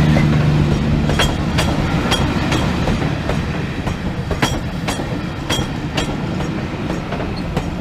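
Train rolling slowly through a station, its wheels clicking over rail joints every half-second to second over a steady rumble. A low hum at the start fades out about a second in.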